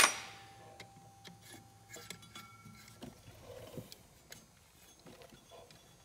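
Faint, scattered clicks and light metallic taps of a folding hex-key tool working a pin out of a Ski-Doo pDrive primary clutch's cam assembly.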